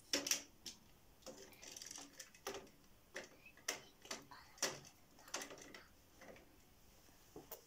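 Small toy cars clicking and knocking against the plastic decks of a toy parking garage as they are set down and shifted: about a dozen light, irregular knocks, with a short scrape about two seconds in.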